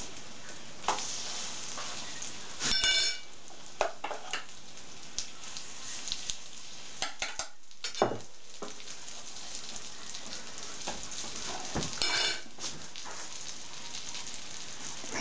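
Pear fritters sizzling steadily in a frying pan, with scattered light clinks of a fork and fingers on a plate. A dog gives a short whimper about three seconds in and again near twelve seconds.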